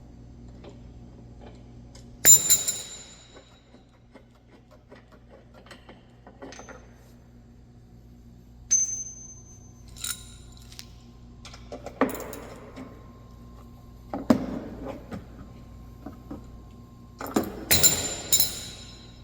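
Metal hand tools clinking against the steel bumper bolts and hardware: several sharp metallic clinks with a short ring, a few seconds apart, the last few close together near the end.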